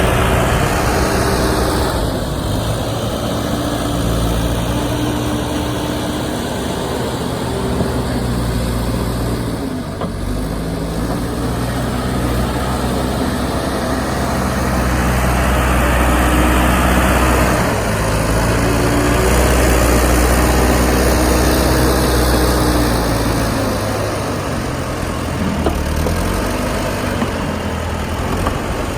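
Tractor diesel engine running steadily, its pitch drifting slowly up and down.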